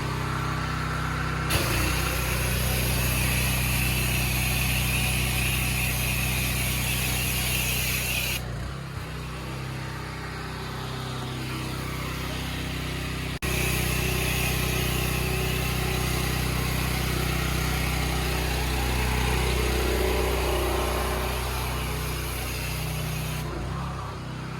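Small engine running steadily, driving a chemical sprayer, with a spray hiss. The hiss starts about a second and a half in, stops about eight seconds in, returns about thirteen seconds in and fades near the end.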